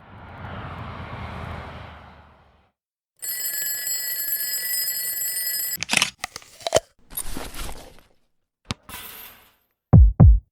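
A string of separate editing sound effects: a noisy swoosh that swells and fades over a couple of seconds, then a steady bright ringing for about two and a half seconds, then a few short clicks and brief noisy hits. Near the end come two loud, deep hits that drop in pitch.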